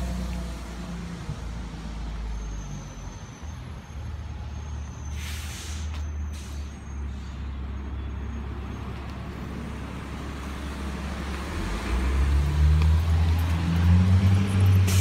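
Downtown street traffic with a bus's engine running; about five seconds in, a short air-brake hiss. The engine rumble grows louder about twelve seconds in.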